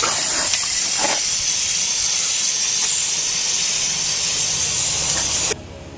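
Aerosol spray paint can spraying in one long continuous hiss that cuts off suddenly about five and a half seconds in.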